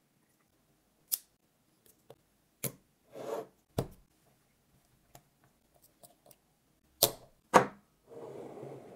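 Sharp clicks and knocks of hard tools on a glass perfume bottle as a spray pump is pressed on with a hand crimping tool and a cap is fitted, five distinct clicks in all. There is a short scrape in the middle and a longer rough rubbing noise near the end.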